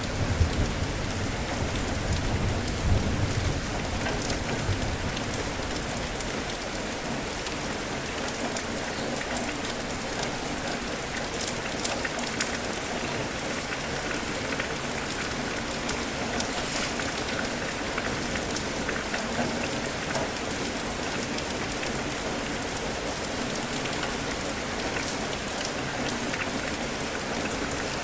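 Steady rain falling, a dense even patter. A low rumble of thunder sits under it during the first few seconds.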